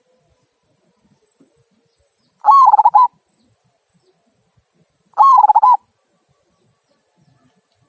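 Local zebra dove (perkutut) cooing in the 'kung' voice, the kind of call used as a lure. Two short, quickly pulsing coo phrases come about two and a half seconds apart.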